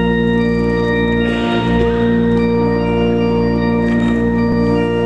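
Music: a sustained organ chord held steadily, with no rhythm or melody moving.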